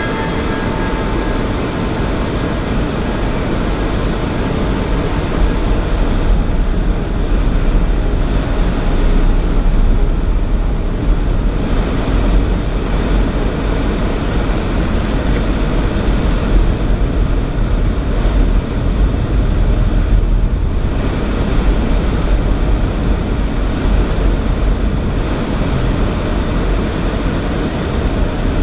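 Storm wind on the microphone: a loud, steady rushing rumble that swells and eases in gusts.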